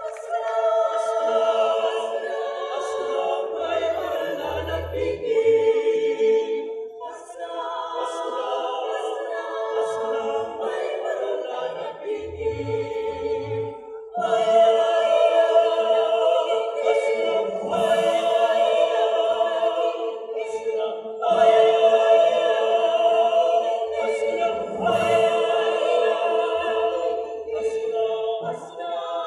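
Mixed choir of women's and men's voices singing in sustained harmony, in phrases that grow louder about halfway through.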